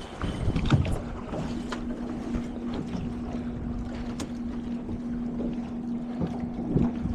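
Wind on the microphone and water sounds aboard a small sailboat as it comes about, with a few sharp knocks in the first two seconds and another near four seconds in. A steady low hum starts about a second in.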